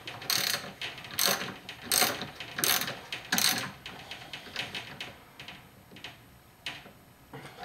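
Hand socket ratchet clicking in short strokes, about one every two-thirds of a second, as it snugs the nut on the top mount of a rear shock absorber's shaft. The strokes grow fainter and sparser in the second half as the nut is brought just tight, short of crushing the mount.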